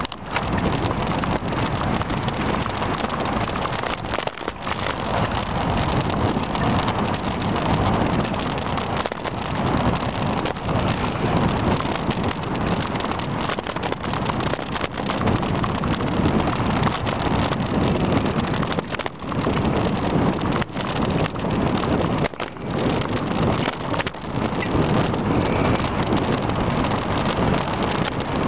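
Wind rushing over the microphone of a camera riding on a moving bicycle: a loud, steady rush with a few brief dips.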